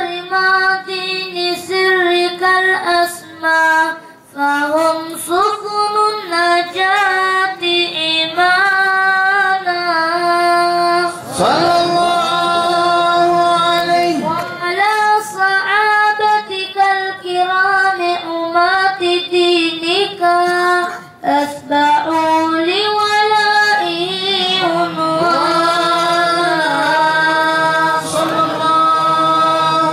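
A boy's voice chanting an unaccompanied devotional mawlid song into a microphone, in long melismatic phrases that slide and ornament between held notes, with short breaths between them.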